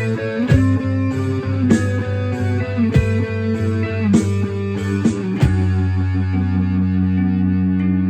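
Electric guitar and bass guitar playing a slow rock groove, with a sharp percussive hit about every second and a quarter. About five and a half seconds in, the hits stop and a final chord and low bass note are held and ring out.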